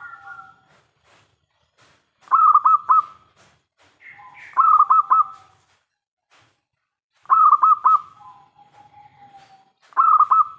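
Zebra dove (perkutut) cooing song, four bouts, each a quick run of three or four short notes followed by a lower, drawn-out coo.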